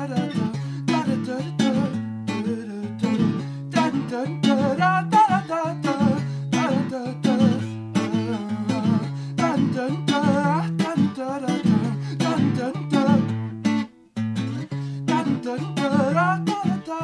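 Cutaway acoustic guitar played lap-style, lying flat across the lap, with both hands tapping and plucking a quick run of notes over repeated low bass notes. The playing breaks off briefly about fourteen seconds in, then resumes.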